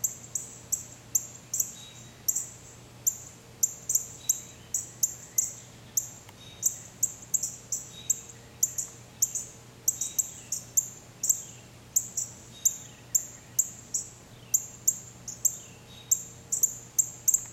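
A small bird calling with a steady run of short, sharp, high chips, about two or three a second, with fainter falling whistled notes behind them.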